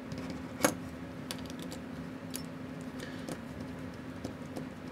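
Scattered light clicks and taps of small metal watchmaker's tools against the parts of a Seiko 6105 diver's watch during disassembly, with one sharper click about half a second in, over a steady low hum.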